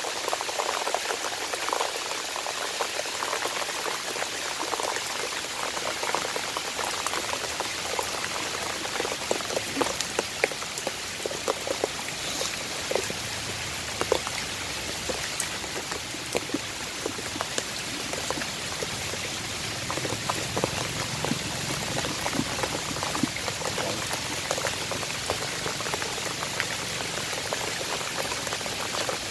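Steady heavy rain falling, with many separate drops ticking close by.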